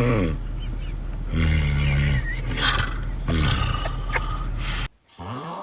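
A pet snoring loudly in long buzzing snores, one about every two seconds. Near the end the snoring cuts off and a short rising call follows.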